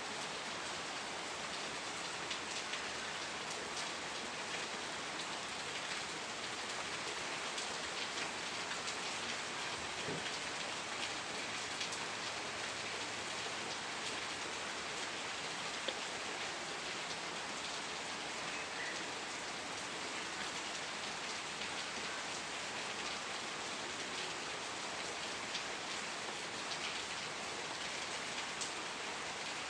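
Steady rain falling on a surface, an even hiss with the patter of individual drops throughout.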